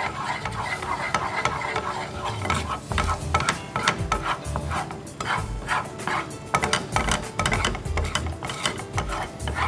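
Wooden spatula stirring and scraping across a nonstick frying pan through melted, caramelising sugar, in many short, irregular strokes.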